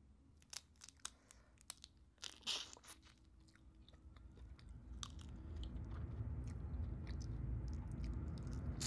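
Cooked lobster shell crackling and snapping in close-up as meat is picked out of the lobster's body section by hand, with one louder crackle a little past two seconds in. From about halfway, chewing of the lobster meat takes over and grows louder.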